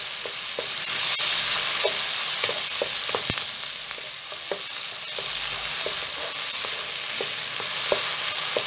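Wet tomato and onion masala sizzling in hot oil in a wok while a wooden spatula stirs it, with light knocks of the spatula against the pan now and then.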